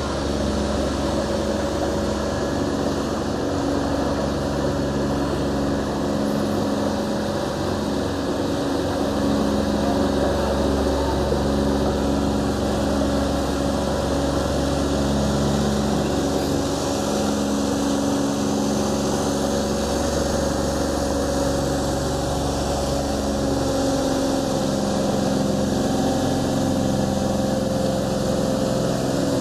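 A canal boat's engine running steadily under way, a low drone whose pitch shifts slightly about 24 seconds in.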